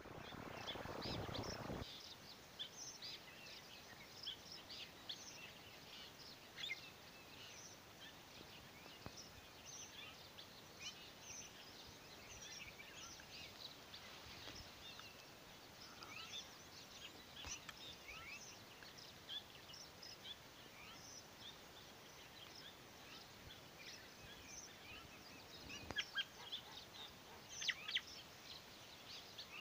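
Faint rural outdoor ambience: many small birds chirping and twittering without a break, over a low background hiss. A short rush of low noise fills the first two seconds, and a few louder chirps come near the end.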